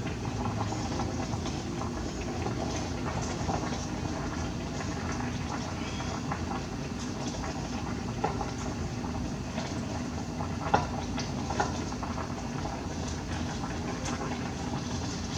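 Pot of corned beef and cabbage simmering, a steady bubbling hiss, with a few sharp knocks about halfway through.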